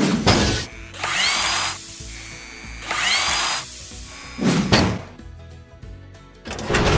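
Sound effects of a robotic arm machining a metal logo, set over music. There is a sudden clank at the start, two short mechanical whirs rising in pitch about one and three seconds in, and another sharp hit about four and a half seconds in.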